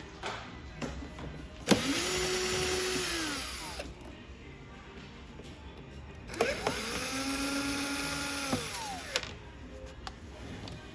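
Cordless power screwdriver running in two bursts, each spinning up and then winding down: one of about two seconds, then a longer one of about three seconds. Light clicks of tool handling come between the runs.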